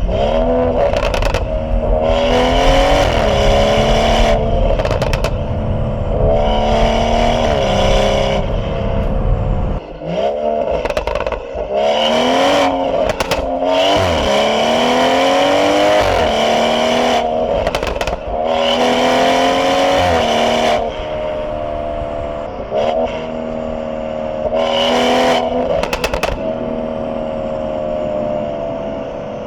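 BMW 440i's B58 turbocharged inline-six with a catless downpipe, accelerating hard several times. The engine note rises through each pull, and there are short sharp cracks in the gaps between pulls. It settles to a steady, slowly falling note near the end.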